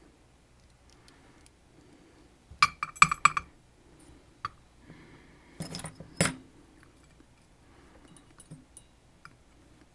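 Metal lock picks and tension tool clinking and clicking against a Sargent Keso lock during picking: two short clusters of sharp clinks, one about a third of the way in and one just past the middle, with faint scattered ticks between.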